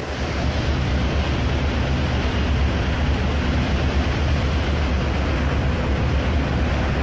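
Steady low rumble and rushing noise on the open deck of a moving passenger ferry under way: engine, churning wake and wind on the microphone together.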